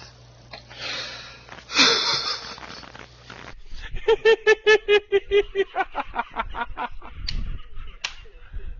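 Breathy gasps, then about four seconds in a man breaks into fast, rhythmic 'ha-ha-ha' laughter, about six pulses a second, heard over a compressed Skype video call.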